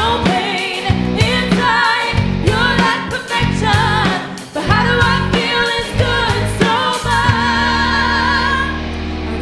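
Pop-rock band playing a song: a woman singing over drum kit, bass and electric guitar, holding one long note near the end.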